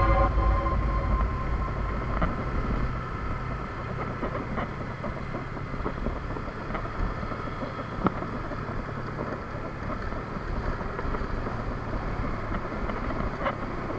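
Steady rushing background noise with a few faint clicks, as a music track fades out in the first second or so.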